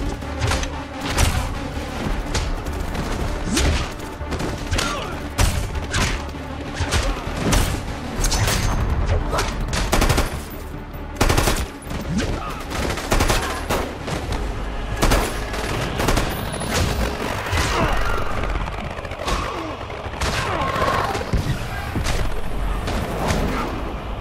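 Battle sound mix: rifle gunfire, repeated shots and bursts of automatic fire with hits between them, over a music score.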